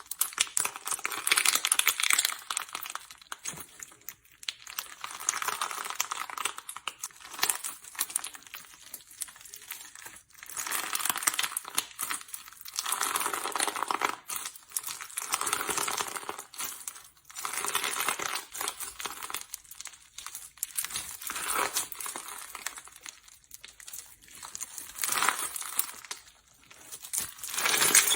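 Slime being squeezed and worked by hand, giving dense crackling and popping in repeated swells every couple of seconds.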